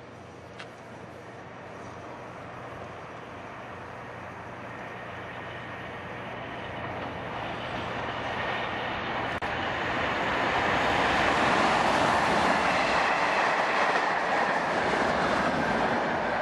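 Approaching train of Class 37 diesel locomotives, growing steadily louder for about ten seconds and then staying loud, with a high whistle coming through as it nears.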